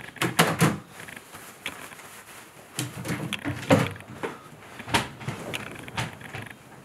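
Handling noises of someone settling into bed: a few short knocks as a laptop is set down on a wooden bedside table, then scattered clicks and bedding rustling.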